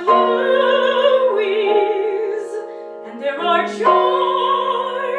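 Soprano singing long held notes in a classical style with wide vibrato, over piano accompaniment. A new phrase starts about three seconds in.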